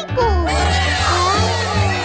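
Cheerful background music with a pulsing bass and a wavering melody; brighter high parts join about half a second in.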